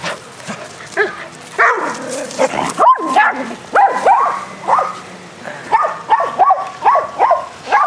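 Dogs at play barking in a quick string of short, fairly high barks, about two or three a second, with a brief pause partway through.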